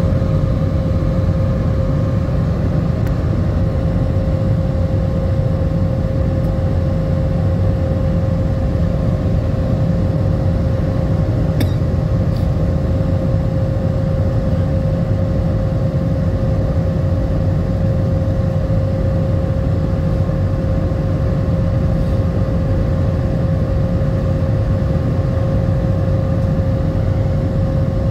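Steady airliner cabin noise during descent: a low, even rush of jet engines and air flowing past the fuselage, with a constant mid-pitched tone running through it.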